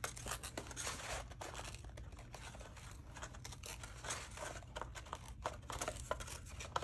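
Paper being torn slowly by hand along a lightly folded crease: a stream of irregular small rips and crinkles.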